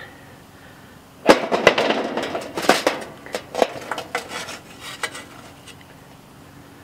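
Metal tongs clattering inside a metal charcoal chimney starter as hot charcoal briquettes are rattled and picked out. A dense burst of clinks and knocks comes a little over a second in, then thins to scattered single clicks.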